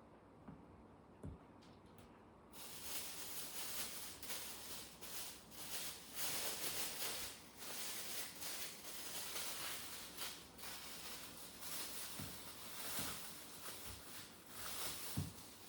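An uneven rustling hiss begins about two and a half seconds in and carries on, with a few soft knocks along the way.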